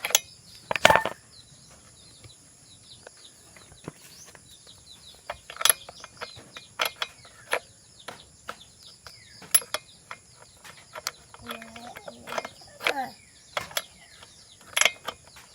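Scattered sharp clicks and knocks of small tools and parts being handled, the loudest about a second in, over a steady high insect drone such as crickets.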